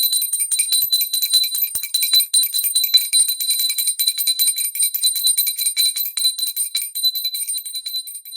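Hand-held brass pooja bell rung continuously, its clapper striking several times a second in a fast, steady jangle with a bright, high ring.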